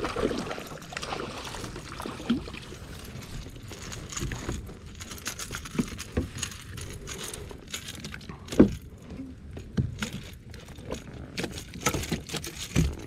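Fishing tackle and gear being handled in a kayak: scattered irregular clicks, rattles and knocks, with one louder thump about eight and a half seconds in.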